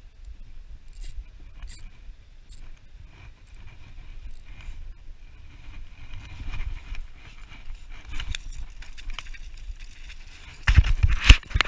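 Spinning reel being wound, with a few sharp clicks early on and wind on the microphone. About a second before the end comes a burst of loud knocks and rustling.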